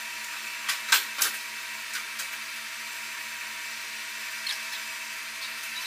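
Steady hum of a large workshop room, holding several fixed pitches, with a few sharp knocks about a second in as a metal fender is handled against a Jeep's body, and a few light ticks later.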